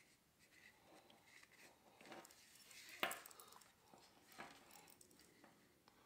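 Near silence with faint handling noises: soft rustling and a few light clicks, the sharpest about three seconds in, as heat-shrink tubing is threaded onto a bungee cord by hand.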